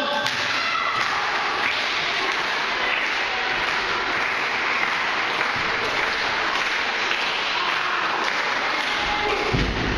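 Wrestling crowd clapping steadily in a hall. A low thudding starts near the end.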